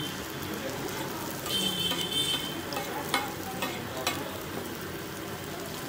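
Tikkis sizzling in oil on a large flat griddle (tawa), a steady hiss. A metal spatula scrapes and taps on the griddle as they are turned, with a brief squeal and then several sharp clicks between about three and four seconds in.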